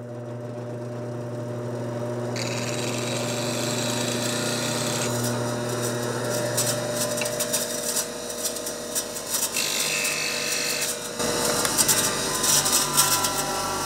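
Steel City bench grinder running with a steady motor hum while the edge of a quarter-inch beading and parting tool is ground on its wheel. A rasping of steel on the wheel shifts as the tool is moved and turns into short strokes near the end.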